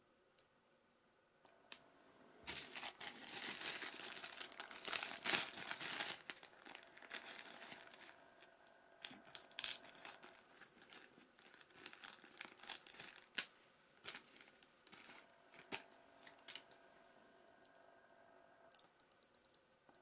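Thin clear plastic packaging bag crinkling and rustling as it is handled and pulled open. The crinkling is densest for several seconds after about two and a half seconds in, then comes in scattered crackles, and a few light clicks come near the end.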